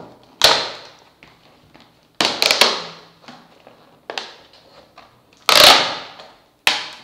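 Clear plastic clamshell packaging being pried and pulled apart by hand: a series of about six sharp plastic cracks and crinkles, the loudest about five and a half seconds in.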